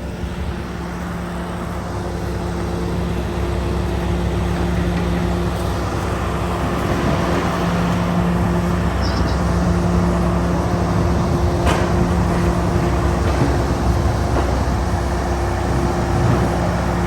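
Heavy diesel engine running steadily with a deep hum, slowly growing louder, with one sharp knock partway through.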